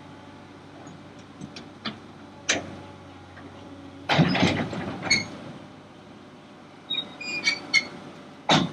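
Kobelco excavator's diesel engine running steadily under a series of heavy steel-on-steel clanks and knocks, with a loud rough burst of clattering about four seconds in, ringing metallic clanks near seven seconds and one heavy knock near the end.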